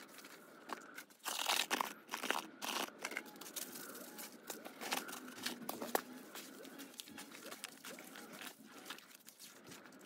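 Gloved hands digging through and mixing moist compost with fertiliser powder in a flexible plastic tub. It makes a gritty crunching and rustling, loudest about a second or two in, then continuing in lighter scrapes.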